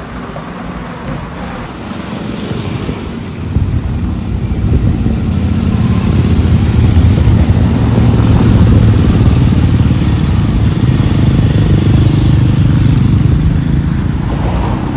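Motorcycle engines running, growing louder about three seconds in, staying loud and easing off a little near the end.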